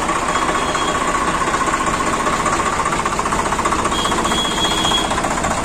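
Swaraj 855 FE tractor's three-cylinder diesel engine idling steadily.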